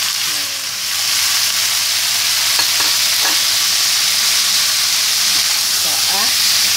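Beef ribs sizzling in hot oil in a wok with sliced red and green chillies as the meat is tipped in and turned with a spatula. The steady hiss swells about a second in, with a few faint spatula scrapes.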